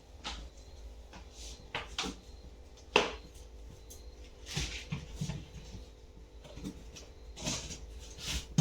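Kitchen handling sounds as leaves are put into a pot of water on a gas stove: several clicks and knocks, the sharpest about three seconds in, and a few softer rustling clatters, over a steady low hum.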